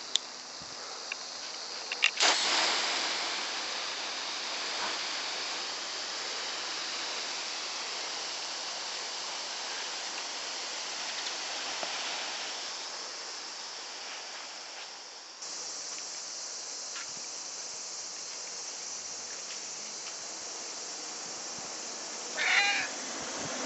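Garden hose spray nozzle hissing steadily as it sprays water, starting abruptly about two seconds in. Near the end a domestic cat meows once, briefly.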